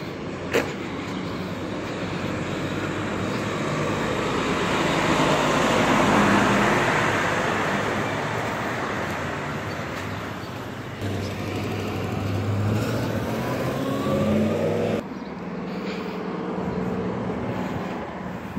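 Street traffic with a tractor-trailer driving past: the engine and tyre noise builds to a peak about six seconds in and then fades as it moves away. A sharp click comes near the start, and a rising whine follows later on.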